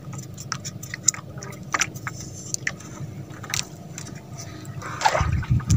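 Irregular small clicks and scrapes of fishing line and hooks being handled, over a steady low hum, with a louder rushing noise about five seconds in.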